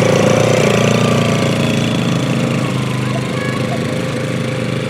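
A small engine running steadily at an even speed, holding one pitch throughout.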